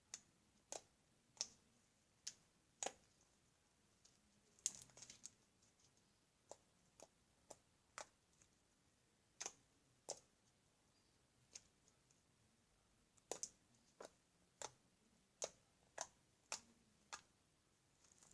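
Slime being handled, making faint, sparse, irregular sharp clicks and small pops, some in quick pairs or short clusters.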